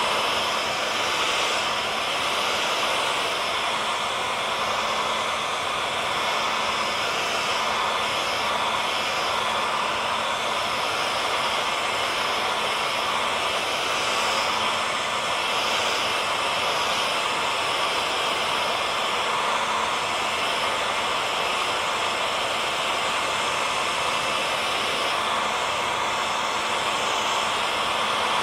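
Hair dryer running steadily: an even airy hiss with a faint motor hum under it.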